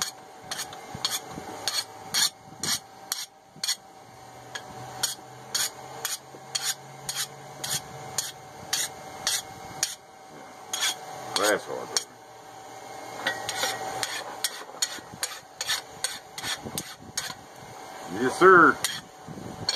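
A hand file scraping across a freshly oil-quenched steel hammer head in short strokes, about two a second, over a steady hum. The file skates off without biting, the sign that the steel has hardened fully.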